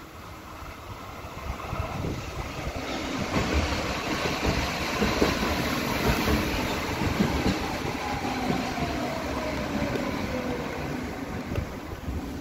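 Dortmund Stadtbahn light-rail train of Düwag B-type cars running past, its sound swelling from about two seconds in to a steady rumble of wheels on rail with scattered clacks. A motor whine falls in pitch partway through.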